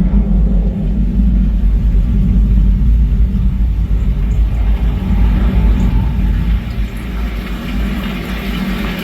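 Deep, steady bass rumble from a home-theater soundbar and subwoofer playing a Dolby Atmos demo, picked up by a microphone in the room.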